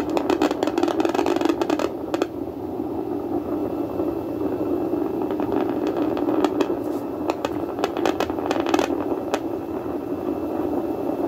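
A ULA rocket's engines heard at liftoff: a steady, deep rumbling roar broken by sharp crackles, thickest early on and again in the second half.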